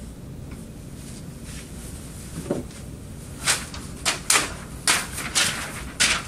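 Sheets of paper rustling and flapping as they are tossed, a rapid series of short swishes about two a second, starting about three and a half seconds in.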